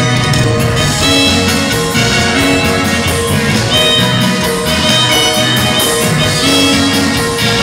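Loud live band music playing continuously for dancing, with held melodic notes over a steady beat.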